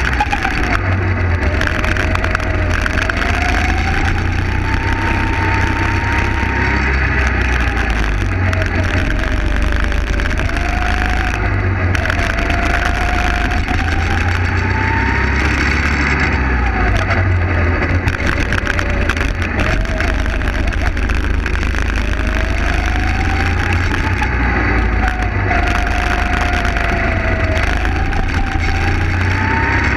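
Kart engine under way, its pitch rising and falling again and again as the kart accelerates and slows through the corners, with heavy wind rumble on the onboard microphone.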